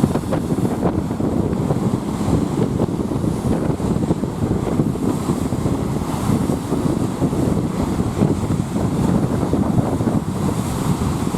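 Strong gusty wind buffeting the microphone in a steady, fluctuating rumble, with rough waves whipped up by the gale washing in underneath.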